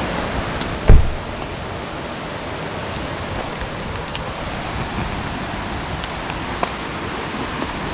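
Steady hiss of rain falling, with a single loud, short low thump about a second in.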